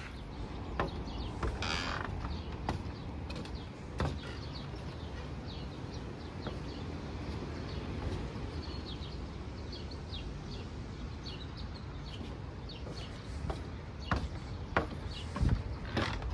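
Footsteps and creaks on wooden decking, clustered near the start and again near the end, over a steady low outdoor rumble. Small birds chirp through the middle.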